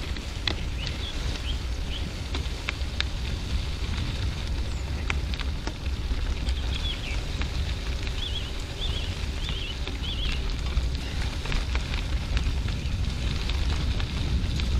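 Bicycle tyres rolling over a loose gravel road, with steady crackling and crunching of stones, and wind buffeting the bike-mounted camera's microphone as a low rumble.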